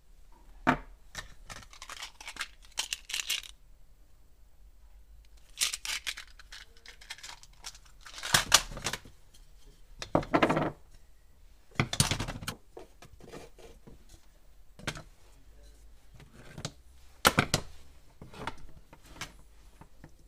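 Hands working with parts and tools: a string of irregular scrapes, rustles and sharp clicks, each a second or less long, with short pauses between them.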